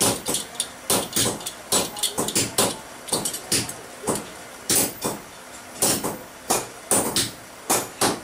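Hand forging: a hammer striking hot steel on an anvil again and again, heavy blows about once a second with lighter taps between them, while a red-hot ball peen hammer head is shaped with a handled tool held on the work.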